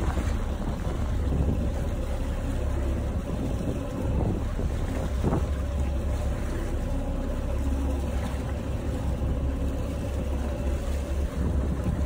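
Sea water rushing and churning with wind buffeting the microphone over a steady low rumble, as heard from a moving boat.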